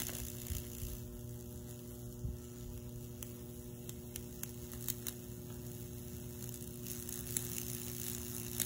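Steady electrical hum from the microwave-oven transformer powering a Lichtenberg fractal wood burner while it burns into wet red oak, with scattered faint sharp clicks.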